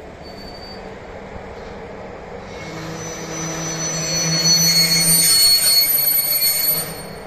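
Railway wheels squealing on the rails: several high, steady whistling tones over a low hum, building up from about two and a half seconds in and cutting off sharply near the end.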